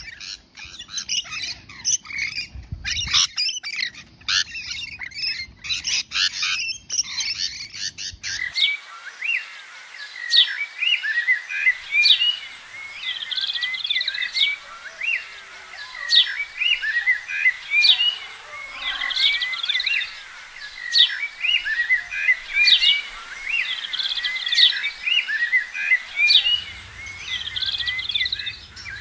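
A flock of rainbow lorikeets chattering and screeching close by. About eight seconds in it cuts off abruptly to thinner, high bird chirps and tweets that repeat about once a second.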